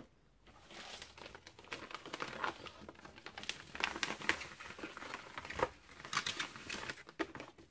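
Large sheets of paper in a paper sleeve being lifted and handled, rustling and crinkling irregularly from about a second in.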